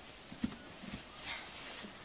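Footsteps in snow: two short, soft thumps in the first second, then a faint rustle.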